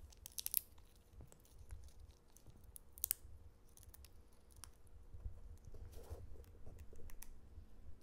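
African grey parrot cracking and nibbling a pistachio shell with its beak, a scatter of small sharp cracks and clicks.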